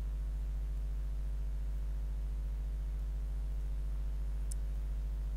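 Steady low electrical hum with a buzz of evenly spaced overtones, and one faint click about four and a half seconds in.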